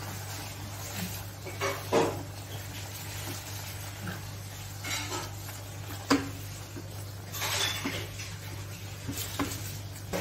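Silicone spatula stirring and scraping thick mutton mince and potatoes in a nonstick saucepan, with a light sizzle as the masala fries in its oil. There are a few sharp knocks against the pan, the sharpest about six seconds in.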